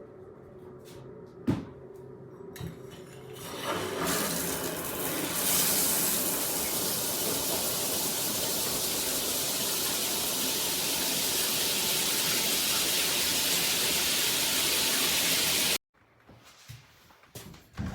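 Veken shower head spraying water: a short knock about a second and a half in, then the spray builds over a couple of seconds into a steady loud hiss that cuts off suddenly near the end.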